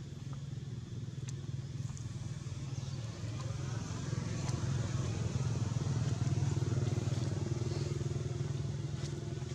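A motor engine's steady low drone, growing louder about halfway through, with a few faint clicks.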